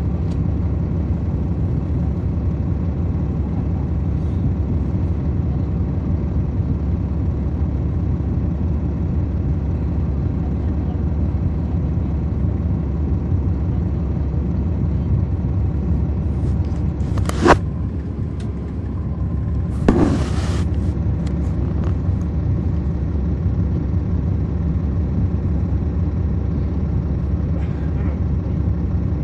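Cummins ISL9 diesel engine of a NABI 40-SFW transit bus running under way, heard from the rear of the bus cabin as a steady low drone. About two-thirds of the way through there is a sharp bang, and a couple of seconds later a short noisy burst.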